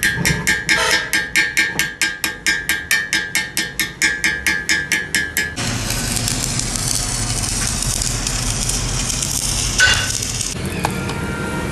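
Chipping hammer striking a weld bead on a cracked truck axle beam, rapid metallic taps about four or five a second, knocking off slag. About five and a half seconds in it gives way to the steady hiss of a stick-welding arc laying a bead along the axle, which stops about ten and a half seconds in.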